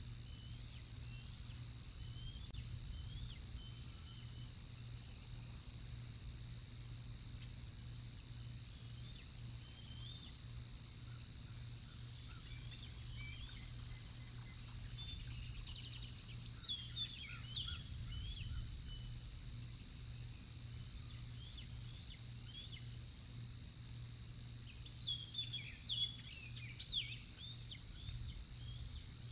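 Juvenile bald eagles squeeing: high, thin chirping calls in two louder flurries, one about halfway through and another near the end, with softer scattered chirps between, over a steady low hum. The squee calls go with the birds' competition over food, each guarding its share.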